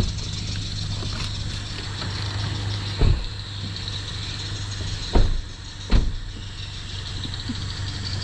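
Car engine idling steadily with a steady high hiss, broken by three dull thumps about three, five and six seconds in.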